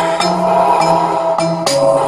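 Music with a drum beat and bass line playing through a small woofer speaker driven by a homemade single-IC audio amplifier.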